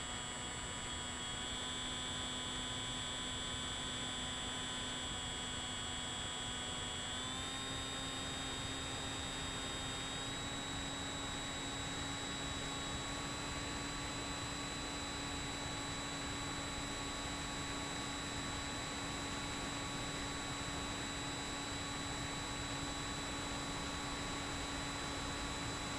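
Steady whine of a Bixler 3's electric motor and pusher propeller in flight, with a rush of air behind it. The pitch steps up slightly about seven seconds in, then holds.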